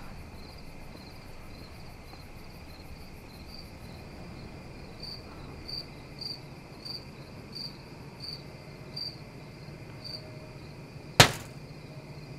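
Crickets chirping in a slow, even rhythm, a bit more than one chirp a second, over a low steady background hum. About eleven seconds in comes one sudden loud bang.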